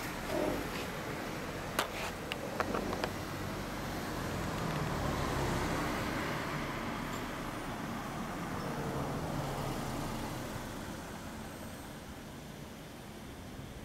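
Road traffic going by, a steady rushing noise that swells near the middle and fades toward the end. A few sharp clicks come about two to three seconds in.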